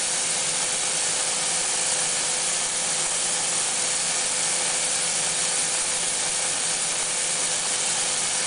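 Kitchen faucet running a steady stream into bathwater in a stainless steel sink: an even, unbroken hiss of falling water, with a faint steady tone beneath it.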